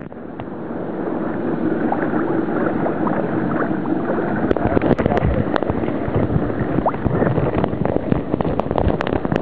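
Shallow sea water sloshing and splashing close to the microphone, mixed with wind noise. Irregular sharp knocks and clicks join in from about halfway through.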